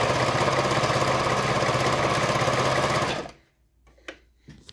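Pfaff Variomatic 6085 sewing machine running at a steady speed, sewing a stretch stitch, then stopping about three seconds in. A few light clicks follow.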